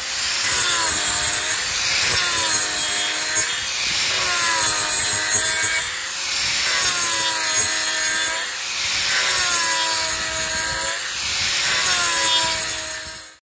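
Angle grinder fitted with a ROTAREX Black Mamba toothed rasp disc grinding wood, the teeth tearing at the surface with a rough rasping noise. The motor's pitch sags and recovers again and again as the disc is pressed into the wood and eased off. The sound cuts off suddenly near the end.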